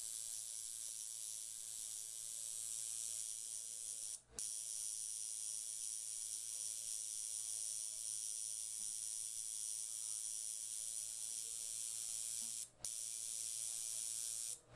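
Permanent makeup tattoo pen running steadily with a high-pitched hiss as it works ink into the eyelid lash line. It breaks off briefly twice.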